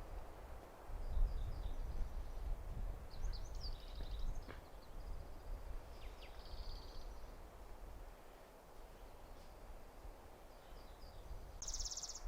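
Wind rumbling on the microphone, with a few short songbird chirps and a brief buzzy bird trill near the end.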